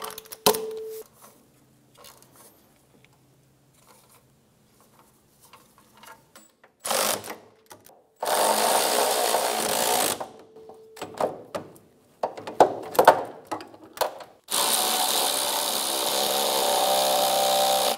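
Power ratchet spinning nuts down onto exhaust studs in four runs, the longest about three and a half seconds, with clicks and knocks of the socket and tool between them.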